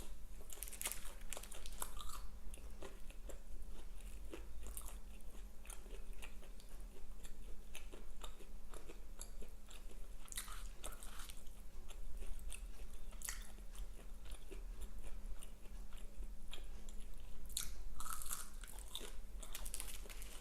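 Close-miked chewing with repeated crunchy bites of Burger King fast food, many short crackles and crunches scattered throughout.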